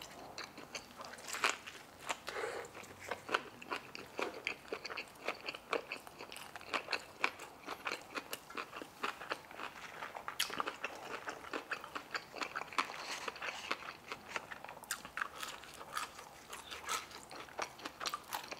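Close-miked chewing of a fried chicken tender slider: many irregular crunches and crackles from the crispy breading as it is bitten and chewed.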